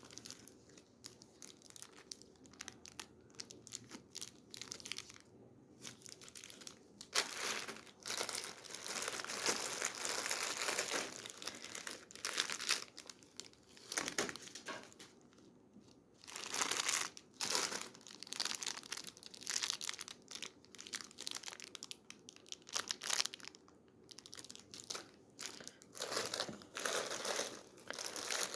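Candy wrappers and packaging crinkling as they are handled, in irregular spells of rustling, quieter for the first several seconds and with brief lulls.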